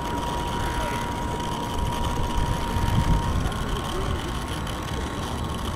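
Radio-controlled model boat's motor whining steadily in a thin high tone, its pitch stepping slightly higher about halfway through, over a constant low rumble.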